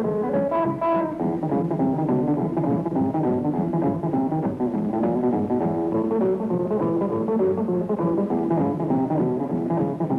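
Country string band playing an instrumental rag: guitars and bass keep a steady swing rhythm under a lead line of quick plucked notes.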